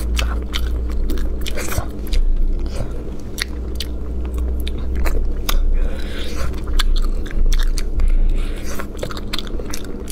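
Close-miked eating sounds of a person biting and chewing meat off a spicy braised rabbit head: a quick, uneven run of sharp clicks and wet mouth noises, over a low steady hum.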